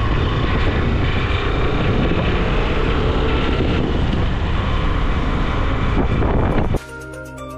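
Motorcycle ride at about 45 km/h: steady, loud wind rush on the microphone over the running bike. Near the end it cuts off suddenly to background music.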